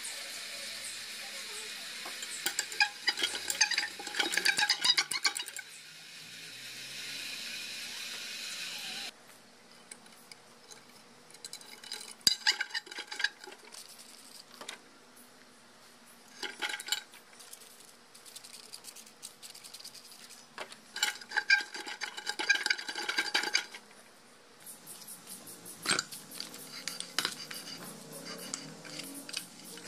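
Old Simplex manual jack being worked by hand: bursts of rapid metallic clicking and clinking, five or so separate runs. A steady hiss underneath cuts off suddenly about nine seconds in.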